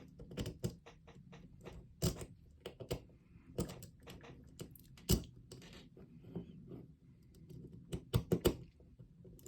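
A city rake lock pick being worked in and out of a pin tumbler lock's keyway: irregular small metal clicks and scrapes, with a quick run of sharper clicks near the end.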